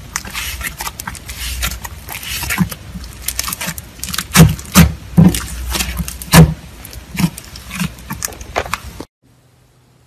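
Hands squeezing and kneading a thick slime, giving irregular sharp wet pops and clicks as air pockets burst, with a few louder pops in the middle. It stops suddenly about nine seconds in.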